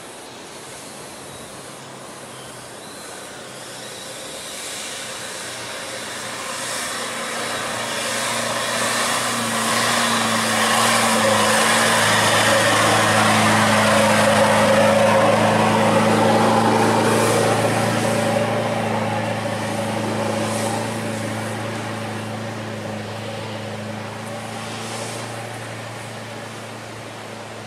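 Nissan Navara dual-cab ute's engine held at a steady note under load as it drives through soft sand, growing louder as it approaches, loudest about halfway, then fading as it moves away, with the rush of tyres churning sand.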